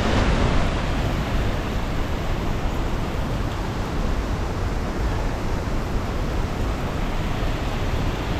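Large waterfall in high flow, falling water making a loud, steady rush.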